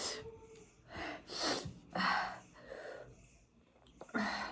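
A woman gasping and drawing sharp breaths through the mouth, about five in a row, from the heat of very spicy noodles.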